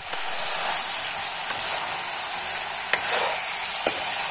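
Pork pieces sizzling in an oiled kadai while a metal spoon stirs them, with four sharp clicks of the spoon knocking against the pan.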